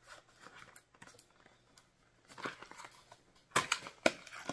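A small cardboard cosmetics box being handled and opened by hand: soft paper scrapes and rustles as its flap is worked loose, then two sharp clicks near the end, about half a second apart.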